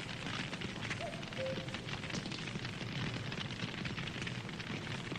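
Wood campfire burning, with dense irregular crackling and popping over a steady low rumble of the flames.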